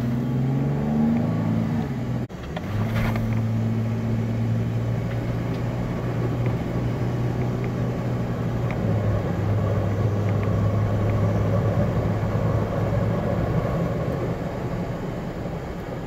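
Four-wheel-drive vehicle's engine heard from inside the cabin while driving on beach sand. Its pitch rises, drops sharply about two seconds in, then holds steady and eases off near the end, over a constant rush of tyre and road noise.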